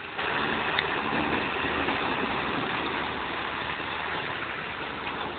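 Claas Jaguar forage harvester and the tractor hauling its trailer running together at work, a dense, steady machine noise that eases slightly toward the end as they move off.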